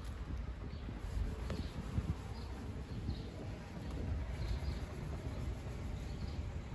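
A cotton cloth buffing a plastic car headlight lens, a steady rubbing over a low rumble of wind and handling on the clip-on microphone. Faint high chirps recur about every half second.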